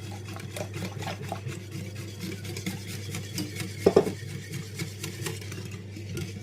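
Whisk beating a runny batter of milk, eggs, sugar and melted butter in a bowl: a quick, uneven run of scraping and tapping against the bowl, with one louder knock about four seconds in.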